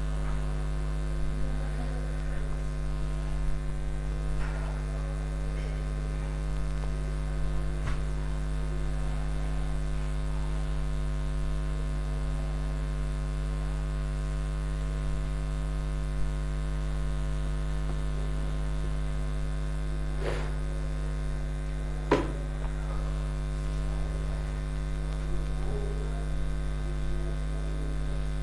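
Steady electrical mains hum with a low buzz and a ladder of overtones, and two sharp taps about two seconds apart near the end.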